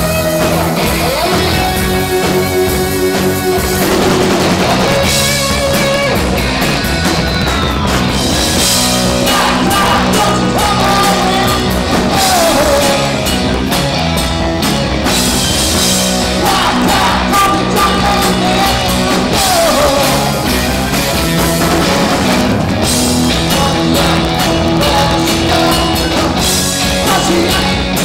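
Live hard rock band playing: electric guitars, bass guitar and drum kit, with sung vocals, recorded loud and muffled.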